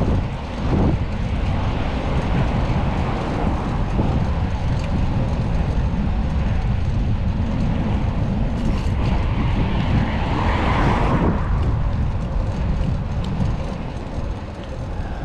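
Wind buffeting the microphone of a bicycle rider moving through city traffic, a steady low rush with street and vehicle noise beneath it, swelling louder about ten seconds in.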